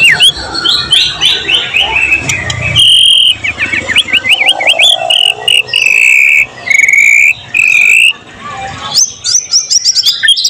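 White-rumped shama (murai batu) singing a loud, varied song: quick chattering phrases and slurred notes, several steady whistled notes, and a fast run of short rising notes near the end.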